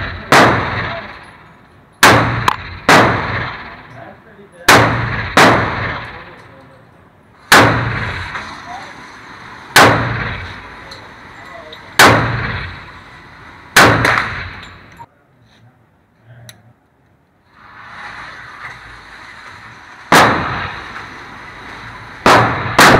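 Semi-automatic pistol firing at an indoor range: about a dozen sharp shots, mostly one to two seconds apart, with some in quick pairs, each followed by a short echoing tail. The firing stops for a few seconds past the middle, then resumes.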